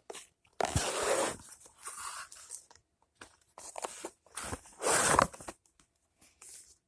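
Packaging being crinkled and torn open by hand, in irregular bursts with small clicks and rustles, the loudest about a second in and again near five seconds.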